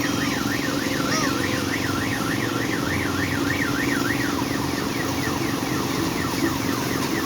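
Electronic siren sound effect from a children's amusement ride, warbling up and down about three times a second. About four seconds in it changes to a quicker run of falling chirps, over the steady hum of the ride's motor.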